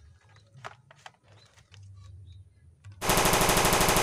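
Toy AK-47 playing its machine-gun sound effect: a rapid, even burst of shots that starts about three seconds in, after a few light clicks from handling the toy.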